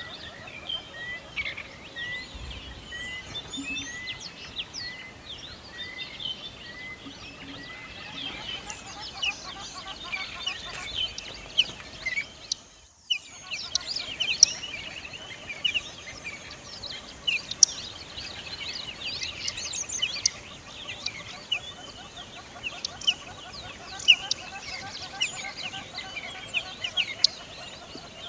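A chorus of many songbirds chirping and trilling without pause. In the first several seconds one bird repeats a short, even note about once a second. The sound drops out almost completely for a moment about 13 seconds in, like a cut in the recording.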